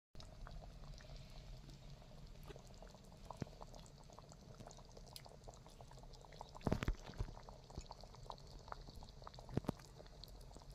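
Chicken curry boiling in a pot: a faint steady hiss with many small bubbling pops, and two sharper clicks, about seven and ten seconds in.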